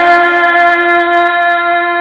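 A man's voice holding one long, steady note in melodic Quran recitation, without any waver in pitch.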